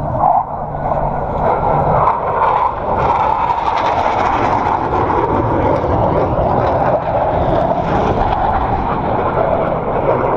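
Blue Angels jet engines roaring overhead, loud and steady for about ten seconds before falling away sharply just after the end.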